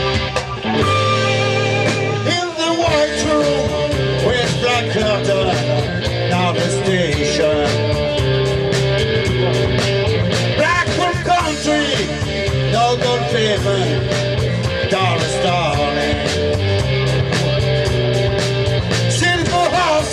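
Rock music: electric guitar, bass and drums playing with a steady beat.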